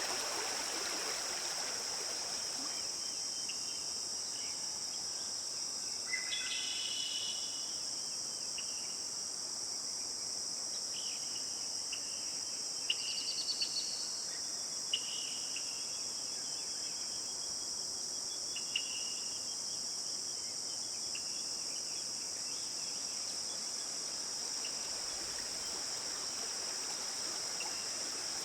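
A steady, high-pitched insect chorus, with short bird chirps scattered through it and a brief fast trill about halfway. Running water fades out in the first couple of seconds.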